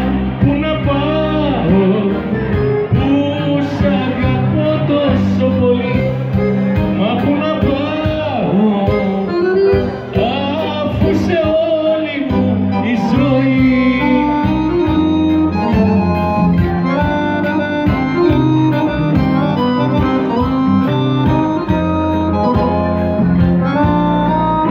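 Live amplified Greek zeibekiko music: a male singer's voice over an electric band through the PA. The voice is heard mainly in roughly the first half, after which the instrumental backing carries on alone.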